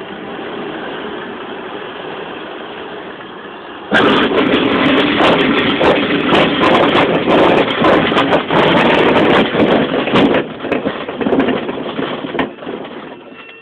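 Steady rush of air past an ASK-13 glider's cockpit as it floats low over the field. About four seconds in, the main wheel touches down on grass and the landing roll sets up a loud rumble with rattles and knocks through the airframe, which dies away as the glider slows to a stop.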